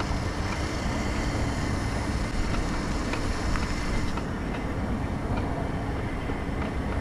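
Scooter running at a steady pace while ridden, with wind rumbling on the microphone and a faint steady hum.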